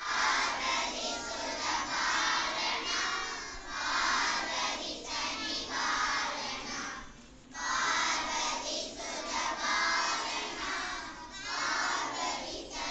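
A large group of children singing together in unison, in phrases of about two seconds each, with a short break about seven seconds in.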